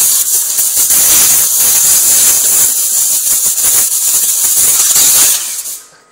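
Compressed-air blow gun with a long nozzle blasting a steady loud hiss of air, which dies away and cuts off near the end.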